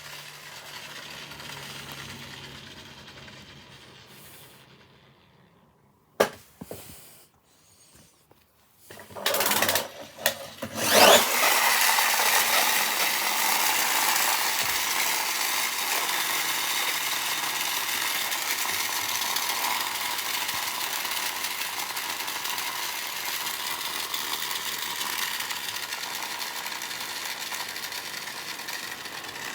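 A Hummer's continuous mechanical noise as it moves. The noise dies away to near quiet, a few sharp knocks and loud bangs come partway through, and then the noise returns loud and steady and slowly fades.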